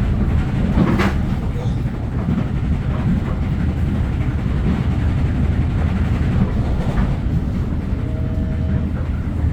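Passenger train running on the rails: a steady low rumble, with a sharp click about a second in.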